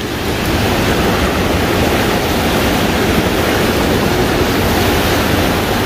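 Fast, swollen river rushing through rapids over boulders: a steady, even rushing of turbulent water.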